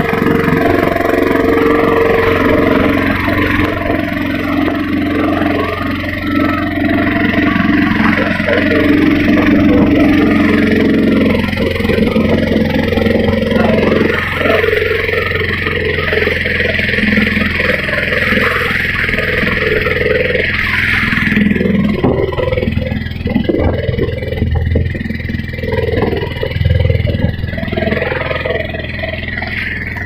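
A motorboat's engine running steadily under way, with water rushing and splashing along the hull.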